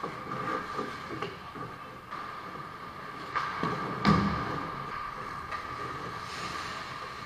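Ice hockey play heard from behind the net: skate blades scraping the ice and sticks and puck clicking, with a loud thump about four seconds in as a player shoots at the goalie. A steady high hum sits under it all.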